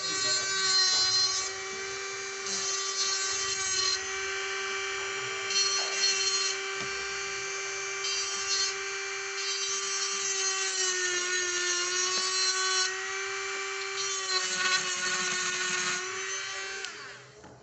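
Jeweller's rotary handpiece spinning a small ball bur against a silver ring. It gives a steady high whine, with bursts of gritty grinding each time the bur bites the metal. The pitch sags slightly past the middle, and the motor winds down just before the end.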